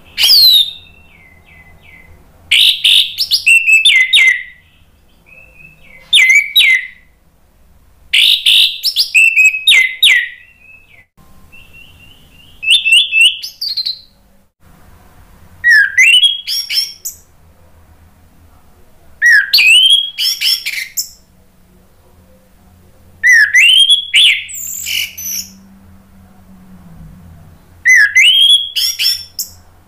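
Orange-headed thrush singing: about nine loud phrases of quick, varied whistled notes, one every three to four seconds, several of them opening with a sharply rising whistle.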